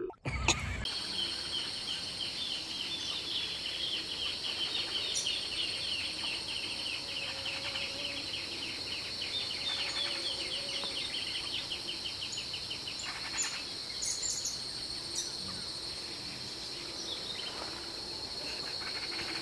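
Outdoor nature ambience: a steady high-pitched insect drone with a fast, rapidly pulsing insect trill and scattered bird chirps. It opens with a brief loud burst in the first second.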